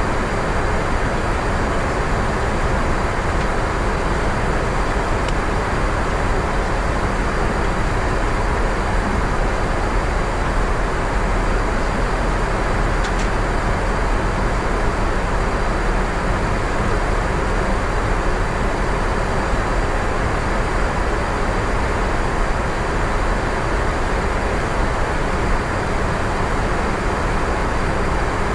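Steady flight-deck noise of an Airbus A350-900 in flight: a constant rushing of airflow and engines, heaviest in the low end, unchanging throughout.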